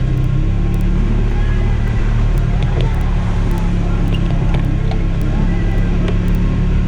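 2011 Polaris RZR 900 XP side-by-side's parallel-twin engine running steadily, with scattered light clicks and rattles.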